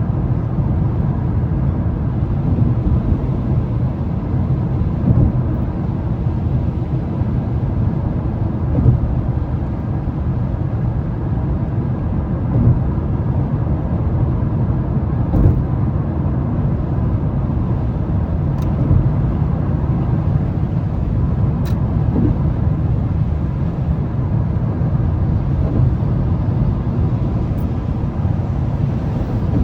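Mazda 3 cruising at highway speed on a wet road: a steady low rumble of engine and tyre noise.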